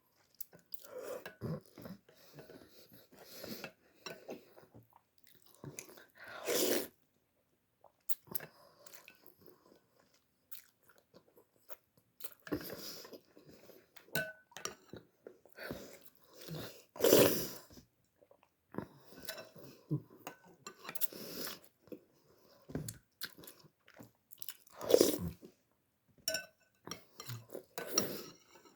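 A person eating instant vermicelli noodles: irregular chewing and biting sounds, broken by three louder short bursts spread through.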